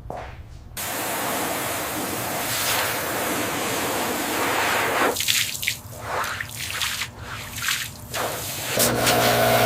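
Water spraying in a steady hiss for about four seconds, then irregular dripping and splashing, with a steady hum starting near the end.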